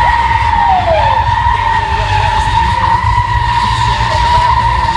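Toyota GT86 drifting, its tyres squealing in one long steady screech over the engine's low running sound, with a short squeal falling in pitch about a second in.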